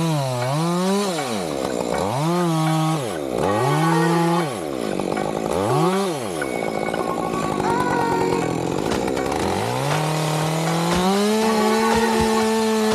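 Chainsaw engine revved in about four quick throttle blips, dropping back toward idle between them. A few seconds of lower running follow, then the engine climbs to full throttle and holds there steadily.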